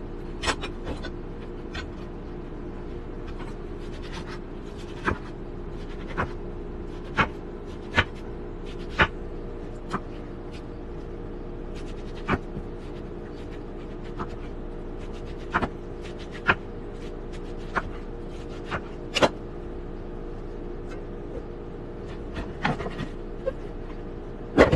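Kitchen knife cutting through a watermelon and striking a wooden cutting board: about twenty sharp knocks at uneven intervals over a steady hum.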